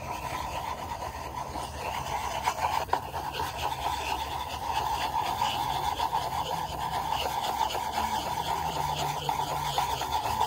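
A plastic cup being spun in circles against a wooden floor: a steady scraping, rubbing noise with many small clicks.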